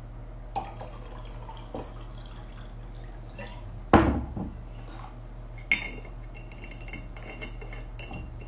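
Handling noise from a phone: a few light clicks and knocks, the loudest a thump about four seconds in, over a faint steady low hum. A faint thin ringing follows a click near six seconds.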